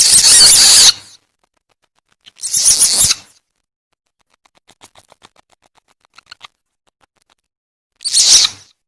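Civet calls played as a hunting lure: three short, loud calls of about a second each, with faint rapid ticking in the gap between the second and third.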